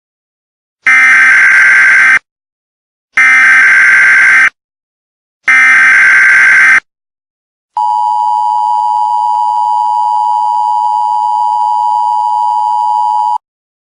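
Emergency Alert System broadcast opening. First come three identical SAME header bursts, buzzy digital data chirps each lasting about a second and a half, with short gaps between them. Then the EAS two-tone attention signal, a steady dual tone held for about five and a half seconds, marks that an emergency message is about to be read.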